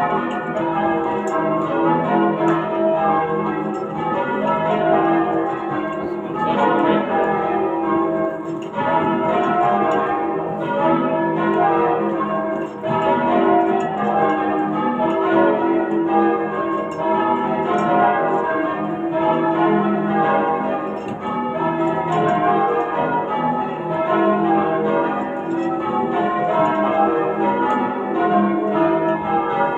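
Change ringing on a ring of eight church bells tuned to E, with a 19 cwt tenor, cast in 1739, 1895 and 1914 by Thomas Bilbie and Llewellins & James. The bells strike one after another in a steady, unbroken stream of changes.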